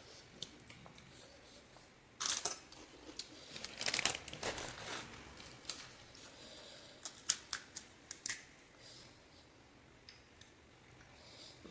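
Crisp panipuri shells cracking and crunching in a few short bursts, with scattered sharp clicks between them.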